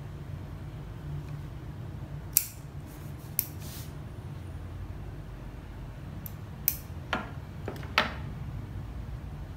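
Metal bonsai scissors snipping and clicking a few times, sharp separate clicks, then the scissors set down on a wooden tabletop near the end.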